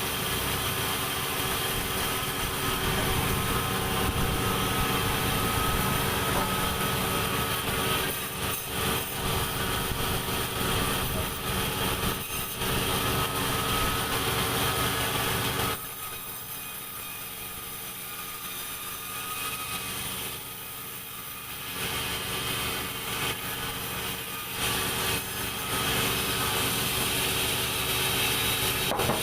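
Sawmill machinery running steadily, a motor-driven saw with a constant hum. The sound drops noticeably for several seconds a little past the halfway point, then comes back up to full level.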